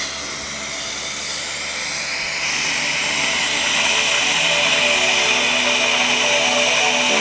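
High-speed dental handpiece running with a steady high whine as it cuts the tooth to clear the contact point in interproximal reduction, its pitch rising briefly about two seconds in.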